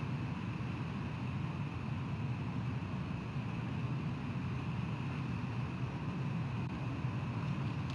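Steady outdoor background noise at the nest-cam microphone: a low, even rumble with a faint hiss above it, unchanging throughout, with no calls or distinct events.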